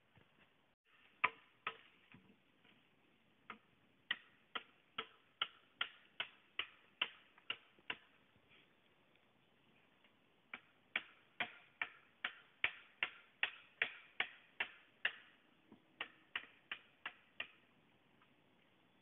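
Machete chopping bamboo: runs of sharp knocks at about three a second, broken by short pauses.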